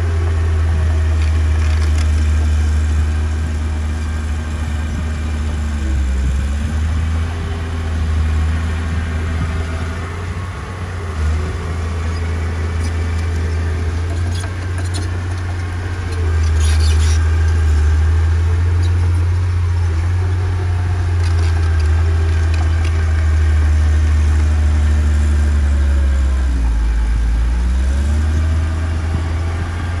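Small crawler bulldozer's diesel engine running under load with a deep, steady drone. Its pitch sags and recovers about six seconds in and again near the end, and light clanks sound around the middle.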